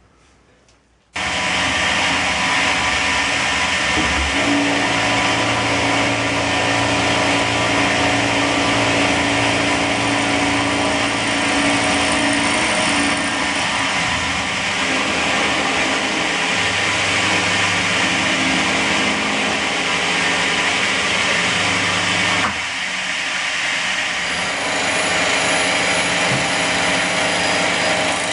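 Milling machine running and cutting an aluminium plate: a steady machining noise with a high hiss over several steady motor tones. It starts abruptly about a second in and shifts slightly lower in level and tone near the end.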